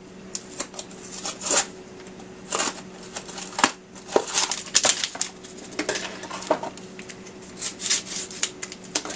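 A small cardboard box of Jell-O gelatin and its inner packet being torn open by hand, with irregular crinkling, tearing and clicking. Scissors cut the packet near the end.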